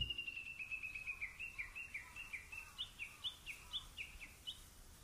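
A bird singing a quick run of short chirped notes, about three or four a second, each sliding in pitch. It grows gradually fainter.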